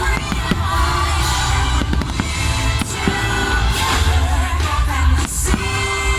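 Fireworks show soundtrack, an orchestral song with singing, played loud, with firework bursts cracking and banging many times over it.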